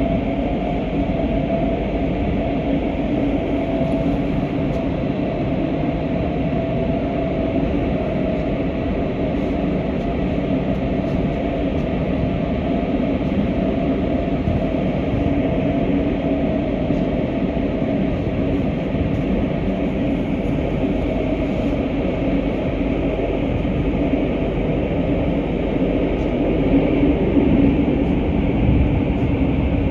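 GTX-A express train heard from inside the passenger car while running at speed: a steady rumble and rush with a faint steady whine, growing a little louder near the end.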